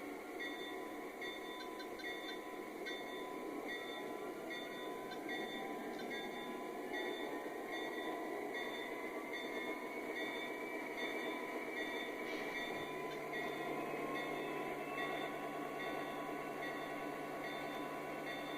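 Toy train running along its track: a steady whir with a regular light clicking, joined by a low steady hum about two-thirds of the way through.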